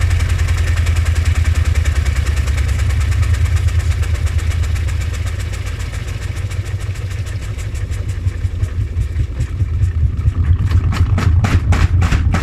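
Front-loading washing machine drum spinning out of balance with heavy suds: a loud low rumble with fast, even thumping that slows near the end into separate heavy knocks as the spin winds down.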